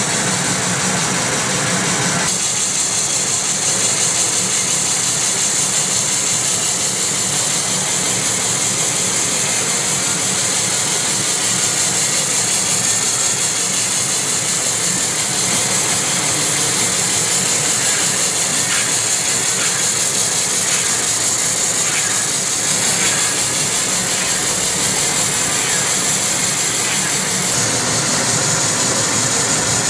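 Simple wood-turning lathe machine turning a coconut-wood (glugu) pole, running steadily with a low machine drone under a high hiss. The sound shifts about two seconds in, the drone dropping and the hiss getting louder.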